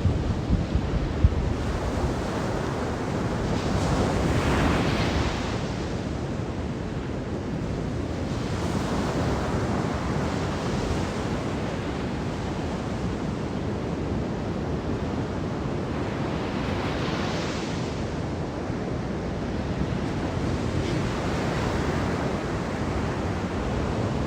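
Sea waves washing onto a beach, the surf swelling and easing every few seconds, with wind buffeting the microphone.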